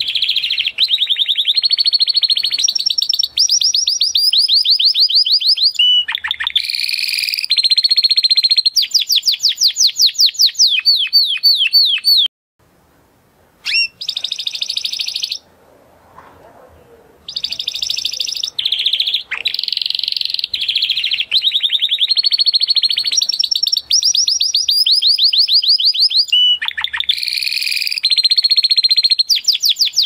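Spanish Timbrado canary singing: long runs of rapid, evenly repeated high notes, one trill after another. Midway the bird falls silent for about five seconds, broken by one short phrase.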